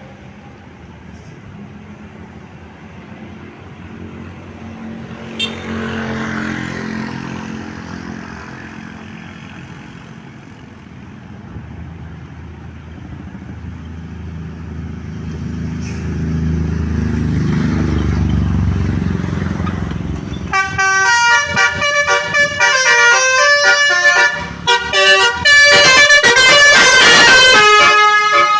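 A heavy vehicle's engine runs and grows louder toward about eighteen seconds in. Then, about twenty seconds in, a Basuri 'telolet' musical bus horn plays a quick melody of changing notes, loud to the end.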